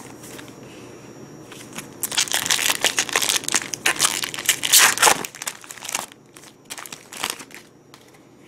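Foil trading-card booster pack wrapper crinkling as it is torn open, dense and loud for about three seconds starting about two seconds in, then a few lighter rustles.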